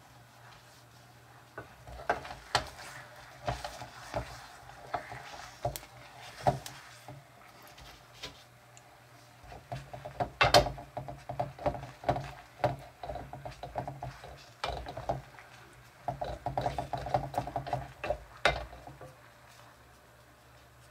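Wooden spoon stirring and scraping thick melted gummy candy in a small stainless steel pot, knocking against the pot in irregular clusters of clacks, over a steady low hum.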